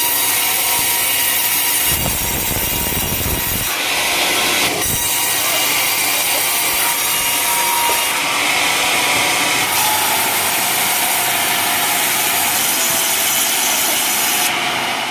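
Sawmill saw cutting lengthwise through a coconut palm log: a loud, continuous sawing noise that shifts in tone a few times as the cut goes on.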